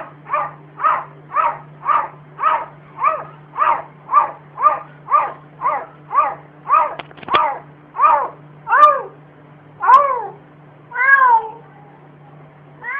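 Domestic cat meowing over and over in short calls, about two a second at first, slowing over the last few seconds into fewer, longer, drawn-out meows.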